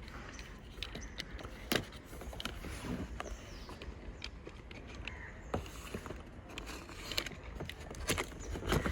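Cardboard packaging being handled and opened by hand: scattered irregular clicks, taps and rustles over a low background rumble.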